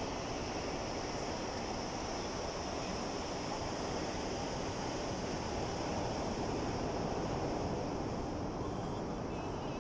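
Sea waves washing in as a steady rush of surf, swelling a little about two-thirds of the way through.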